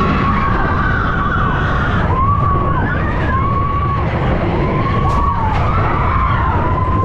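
Big Thunder Mountain Railroad mine-train coaster running along its track with a loud, steady rumble. A high squeal from the wheels rises and falls about five times.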